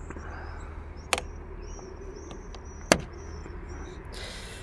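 Two sharp plastic clicks, the second louder, as the tow-hook cover in a Mercedes-Benz CLK's front bumper is pressed in and its clips snap into place.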